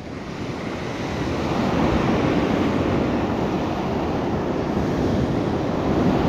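Surf washing onto a sandy beach, a steady rush of breaking waves that swells and eases, with some wind on the microphone.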